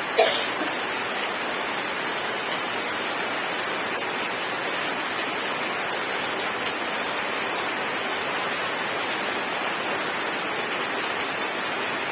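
Steady rain falling, an even rushing hiss, with one short sharp sound just after the start.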